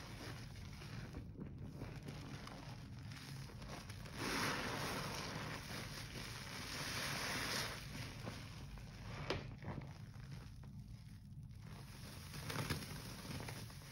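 A large porous sponge soaked in a foamy Comet cleanser slurry, squeezed and kneaded by gloved hands: wet squishing and sloshing, louder from about four to seven seconds. Near the end the sponge is lifted and slurry pours off it.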